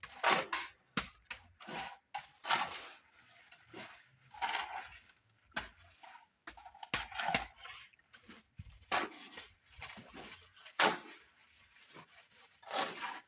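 Manual construction work: a run of irregular scrapes and knocks, about one a second, some sharp and some drawn out.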